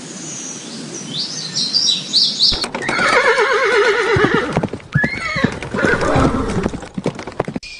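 A horse whinnying about a third of the way in: a long neigh whose pitch quavers rapidly, then a shorter second call that rises and falls. Sharp clicks come between the calls.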